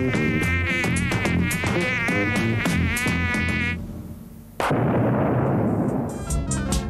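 Electronic TV theme music: a buzzing synthesizer line with a wavering pitch over a steady electronic beat. About four seconds in it drops out briefly, then cuts back in with a sudden burst of noise that falls in pitch, and the beat returns near the end.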